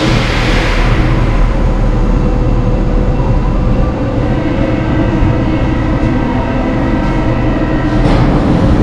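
Paris Métro train running: a loud, steady low rumble with several steady tones over it, and a burst of hiss at the start that fades away.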